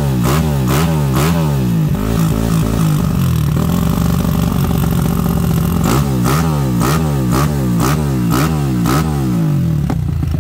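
Tuned single-cylinder motorcycle engine with an open carburetor intake and free-flowing exhaust, blipped hard about twice a second with a sharp crack at the top of each rev. It is held at higher revs for a couple of seconds in the middle, blipped again, and drops back to idle near the end.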